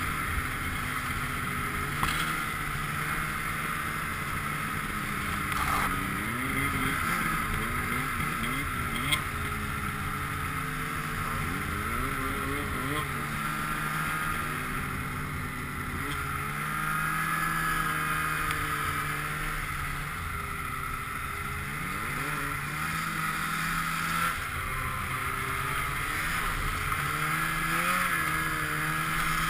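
Polaris snowmobile engine running under way, its pitch rising and falling again and again as the throttle opens and eases, with steady wind rush over the helmet-mounted camera. A few brief knocks cut through, the clearest about two, six, nine and twenty-four seconds in.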